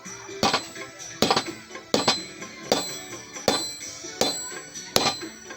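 Blacksmith's hammer striking hot steel on an anvil while forging a crowbar head: seven evenly spaced blows, about one every three-quarters of a second, each with a metallic ring.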